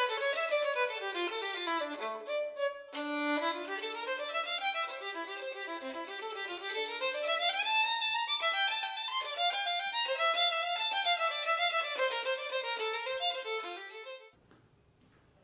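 Background music: a solo violin playing a fast melody in quick runs of notes that climb and fall, cutting off shortly before the end.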